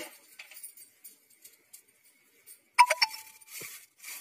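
Faint light ticking, then about three seconds in a sharp metal clink with a brief ring: steel tongs knocking against a small tadka pan of heating oil on a gas burner.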